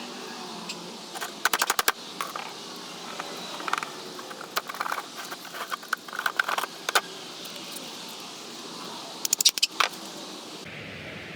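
Several short bursts of rapid mechanical clicking or rattling over a steady hiss.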